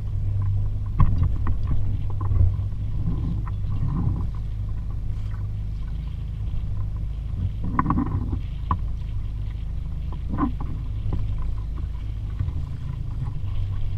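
Steady low rumble with scattered light knocks and clunks of gear being moved about aboard a small sailboat.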